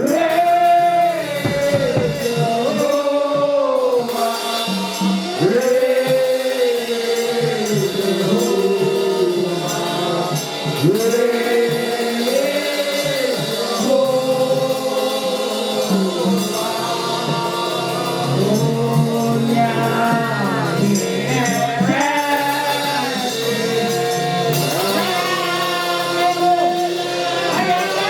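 Gospel worship song sung by a worship leader and congregation together, with instrumental accompaniment and sustained sung lines throughout.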